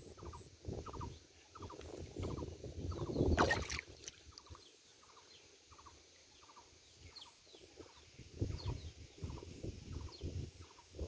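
Irregular splashing and sloshing in shallow muddy floodwater, with one louder splash about three seconds in. Behind it a short call repeats steadily, about twice a second.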